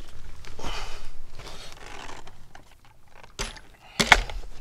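Handling noise as the camera is picked up and moved around the chainsaw: rustling and shuffling, then a few sharp knocks about four seconds in.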